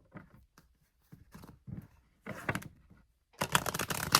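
A deck of cards being handled and shuffled: scattered soft clicks and rustles at first, then a dense run of rapid crisp card flicks a little over three seconds in.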